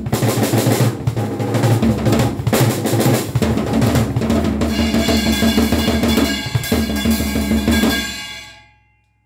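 Acoustic drum kit played in busy 1970s rock-style fills across snare, toms and bass drum, over steady low bass notes that change every second or two. The sound fades out about eight seconds in.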